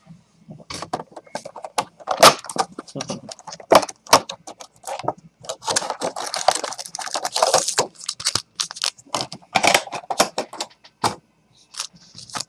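Plastic wrapping crinkling and cardboard rustling in quick, uneven bursts as a sealed box of trading cards is unwrapped and opened, with a short pause about eleven seconds in.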